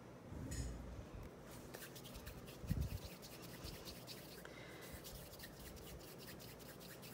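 Hands rolling and rubbing a lump of polymer clay between the palms to warm it: a faint, rapid rubbing. A soft thump comes near the middle.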